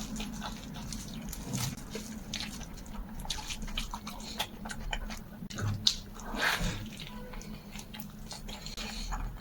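Close-up chewing and mouth smacks while eating a rolled pancake with fatty cured pork: many short wet clicks over a steady low hum. A louder noisy sound comes about six seconds in.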